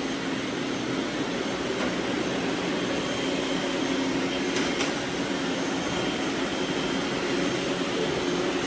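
Several robot vacuums running together: a steady whirring hum with an even rushing noise, and a single light click about five seconds in.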